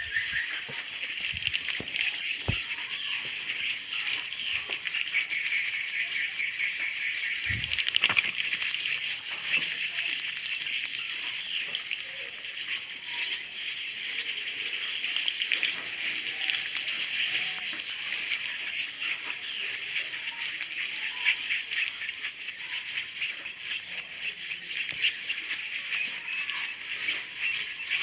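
Dense chorus of edible-nest swiftlets: many overlapping high twittering chirps over a fast, continuous clicking. This is a processed swiftlet-house recording used as a roosting call ('suara inap') to lure swiftlets in. A few low knocks come in the first few seconds and again about eight seconds in.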